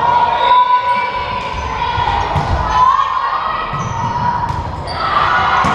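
Volleyball rally in a gym: the ball is struck or lands several times with sharp slaps that echo in the hall, over shouting voices and sneaker squeaks on the hardwood floor.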